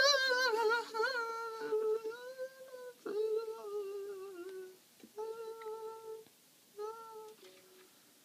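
A voice winds up a song, holding a long wavering note and then humming three shorter steady notes with pauses between them, the last dying away shortly before the end. A mandolin is faintly heard under the voice.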